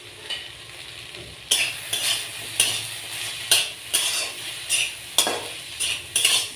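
Taro stems frying in a little oil in a kerahi (wok) with a steady sizzle. About a second and a half in, they are stirred, and repeated scraping strokes against the pan come about twice a second.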